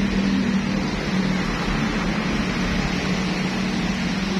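Steady low mechanical hum over a constant noisy background, with no distinct events.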